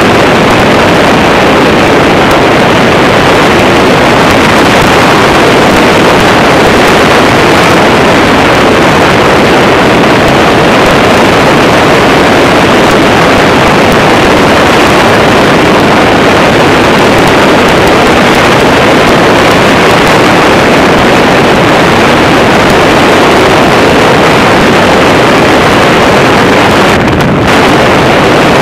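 Motorised hang glider (microlight trike) in flight: its engine and propeller run steadily, buried in heavy wind rush on the microphone, loud and unbroken.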